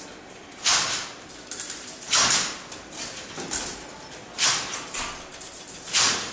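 Babbage Difference Engine No. 2 being hand-cranked through its calculating cycle: a loud mechanical clack-and-slide of its gear stacks and wheel-locking blades about every one and a half to two seconds, four times, with lighter clicks and rattles in between.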